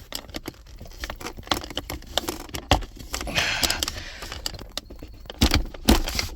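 Hard plastic cup holder insert clicking, knocking and scraping against the truck's center console as it is pushed onto its mounting tabs, with a few sharper knocks in the second half.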